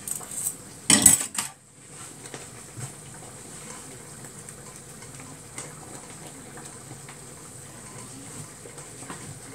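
A metal whisk stirring thick béchamel sauce in an aluminium pan: a loud clatter of metal against the pan about a second in, then quieter, steady scraping and stirring with faint ticks.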